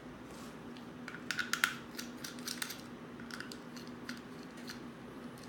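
Light, irregular clicks and taps of small plastic parts and screws being handled as the white plastic case of a Sentry ADS-B receiver is pulled apart by hand, with a cluster of clicks about a second and a half in. A faint steady hum runs underneath.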